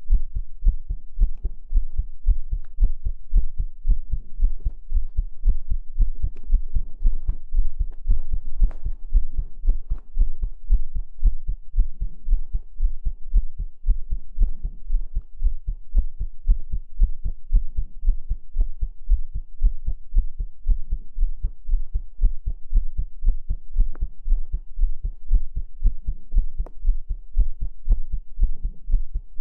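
Heartbeat sounds: an even, unbroken rhythm of deep, low beats.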